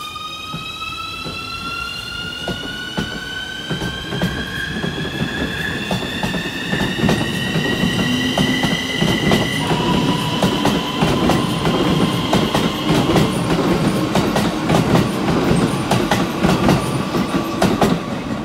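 Keikyu 1000-series electric train pulling away from the platform. Its motor inverter whine climbs steadily in pitch for about ten seconds, then switches to a lower steady tone as the train gathers speed. Underneath, a growing rumble with repeated knocks of wheels over rail joints gets louder.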